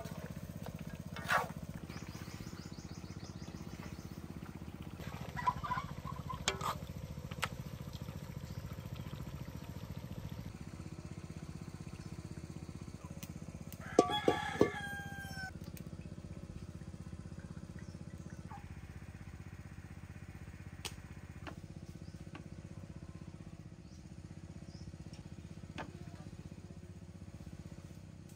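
A rooster crows once, about halfway through: one call of about a second, the loudest sound here. Earlier come a few sharp knocks and clinks.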